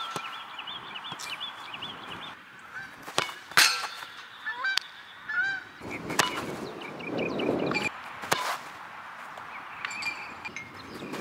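Sharp thumps of a soccer ball being kicked on a turf field, a few seconds apart, over birds calling.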